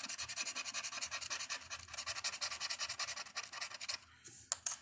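A dollar Cash Explosion scratch-off lottery ticket being scratched, with rapid back-and-forth scraping strokes. The scraping stops about four seconds in, followed by a few short, sharp scrapes.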